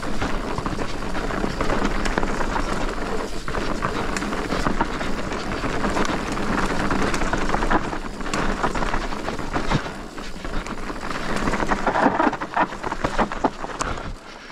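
Commencal Meta TR mountain bike descending a dirt bike-park trail: a constant loud rush of tyres rolling over dirt and stones, with frequent knocks and rattles from the bike.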